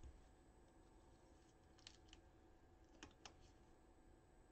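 Near silence with a few faint plastic clicks and scrapes, two around two seconds in and two around three seconds in: a trading card in a soft sleeve being slid into a rigid plastic top-loader.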